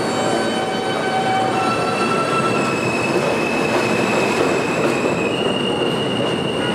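R160 subway train running through the station with a steady loud rumble and high, drawn-out wheel squeal. The squeal tones shift in pitch, and a higher one sets in about five seconds in.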